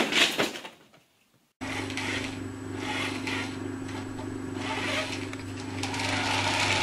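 A cardboard box and paper crash and rustle as a cat leaps onto them, fading out within the first second. After a short gap there is a steady low hum with hiss.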